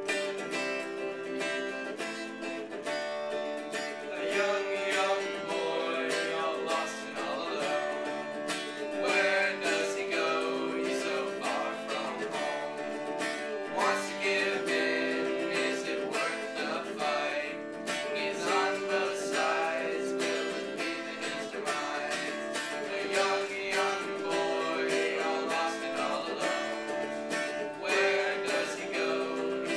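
Hollow-body electric guitar strummed in repeated chords, with boys' voices singing along.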